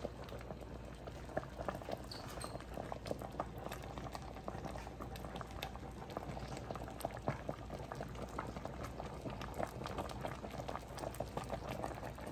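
Pot of sinigang (tamarind soup with shrimp and vegetables) boiling: quiet, steady bubbling with many small pops.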